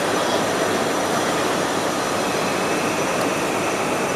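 Steady background noise of a busy railway station concourse: the even rumble of trains and machinery under the station roof mixed with crowd movement. A faint high steady whine comes in about halfway through.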